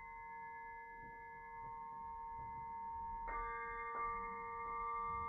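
Quartz crystal singing pyramid ringing with a sustained pure tone and a few overtones. It is struck again about three seconds in and once more a moment later, each strike adding fresh ringing tones.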